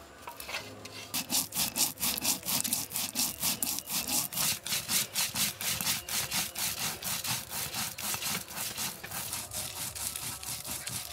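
Rapid, even scraping strokes of a hand tool on a hard material, about four a second, starting about a second in.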